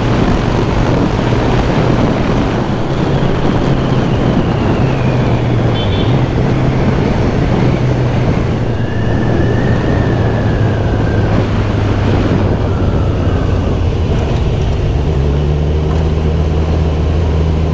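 Kawasaki Z1000SX inline-four motorcycle engine running under way, heard from the saddle with wind and road noise on the camera mic. The engine note shifts a few times, about a third of the way in and again near the end.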